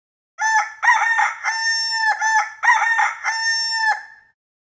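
A rooster crowing twice, each crow a few quick rising notes ending in one long held note, as a clean sound effect with dead silence before and after.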